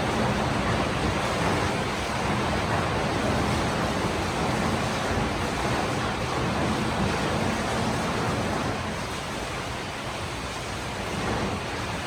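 Steady heavy rain: a constant, even rushing hiss.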